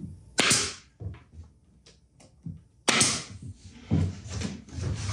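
Plywood cabinet parts knocking and clattering as they are handled during assembly, with two loud, sharp bangs, about half a second in and about three seconds in, and smaller knocks between them.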